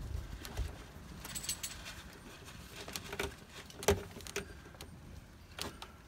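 Solar-panel wires being pulled and tucked behind van wall panelling and plastic trim: handling rustle with scattered clicks and taps, the sharpest about four seconds in.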